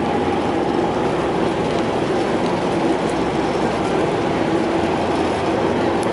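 A river ferry's engine running with a steady, even drone.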